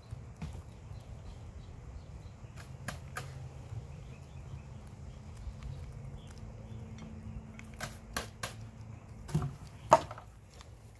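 Several guinea pigs munching leafy greens, with irregular sharp crunching clicks as they bite and tear. The clicks come in small clusters, and the loudest comes near the end.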